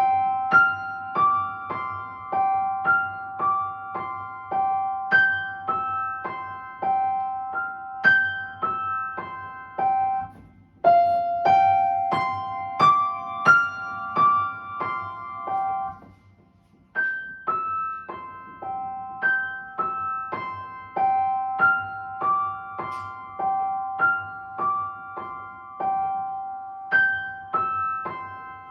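Solo piano playing a flowing pattern of quick, high repeated and broken-chord notes, one note recurring under the figures, with a short pause about sixteen seconds in before the pattern resumes.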